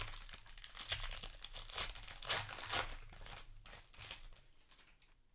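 Crinkling and tearing of a Magic: The Gathering booster pack's foil wrapper being opened by hand, in several rustling swells that die away near the end.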